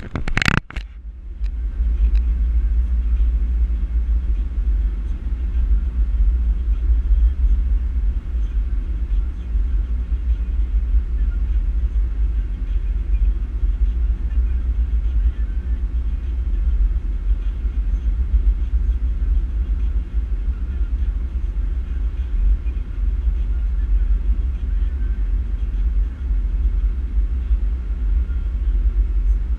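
Steady low rumble of a car driving at highway speed, heard from inside the cabin: tyre, engine and road noise. A brief loud noise sounds in the first second.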